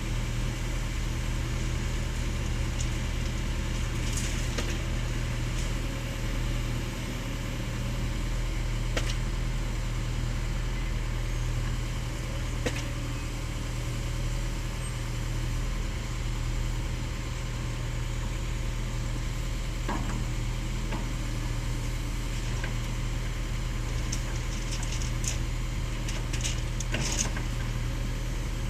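Diesel engine of a hydraulic excavator running steadily, with a few sharp knocks scattered through, more of them close together near the end.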